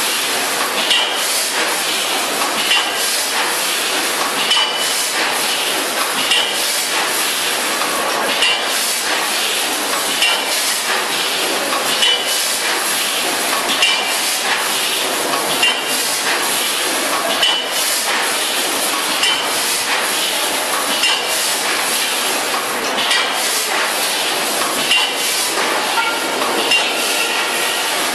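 Granule packing machine (a Zengran VFS5000FS vertical form-fill-seal bagger) running, with a steady mechanical clatter. Knocks and clinks repeat at a regular rate as it cycles through bags.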